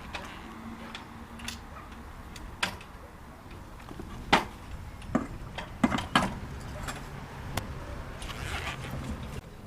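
Irregular sharp clicks and knocks, the loudest about four seconds in and several close together around six seconds, as a repaired passerelle fitting is handled and tried in place.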